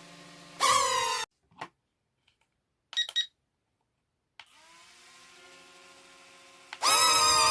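Small electric motor of a toy RC airplane whirring steadily, with a louder burst about half a second in whose pitch drops. The sound then cuts to silence with a few short chirps before the steady whir returns. Loud music starts near the end.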